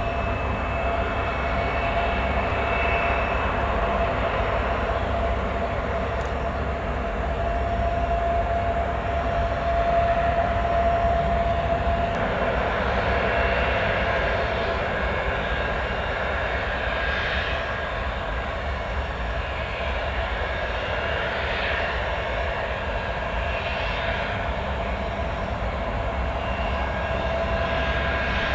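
Kawasaki C-1 transport's twin turbofan engines running at taxi power, a steady jet whine with a high whistling tone over it.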